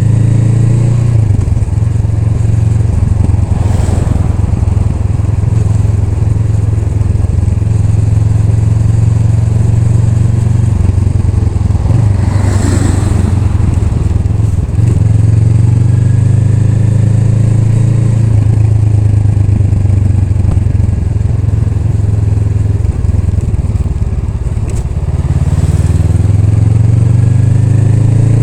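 Honda Rebel 500's parallel-twin engine running steadily as the motorcycle rides along. The engine eases off for a couple of seconds late on, then picks up again.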